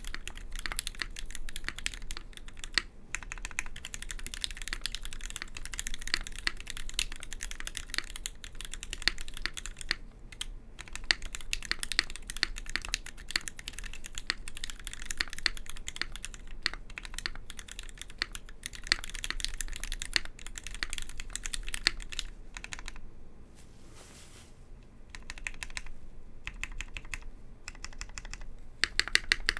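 Typing on a Duck Viper v3 mechanical keyboard with lubed linear Gateron Black switches (Cherry MX tops, 78 g springs), Space Cadet II keycaps and a stainless steel internal weight: fast, continuous keystrokes, easing off briefly about three quarters of the way through.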